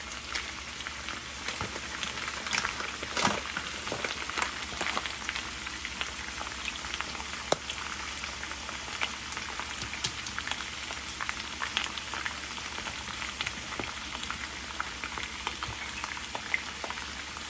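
Food frying in hot oil: a steady sizzle with a dense crackle of small pops and an occasional louder pop.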